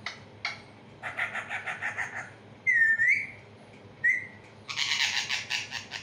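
A pet parakeet calling: two sharp squawks, then a fast chattering run of calls, a loud whistle that dips and rises again, a short whistle, and a long harsh screech near the end.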